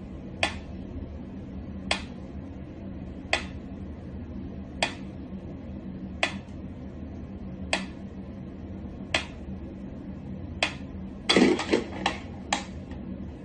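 Sharp, light clicks or taps, one about every second and a half, over a steady low hum, ending in a quick flurry of several taps.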